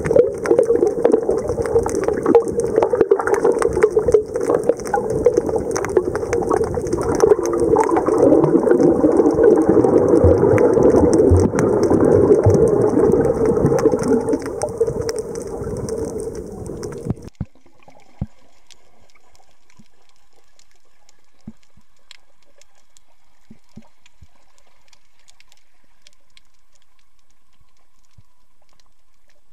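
Underwater camera sound: a loud, muffled rushing of water and movement as a snorkeler swims and dives. About seventeen seconds in it cuts off suddenly to a much quieter steady underwater hiss with scattered faint clicks.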